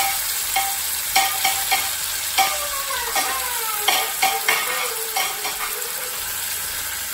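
Marinated chicken pieces sizzling steadily as they deep-fry in hot oil in an iron kadai, with a run of sharp clicks and knocks as pieces are added.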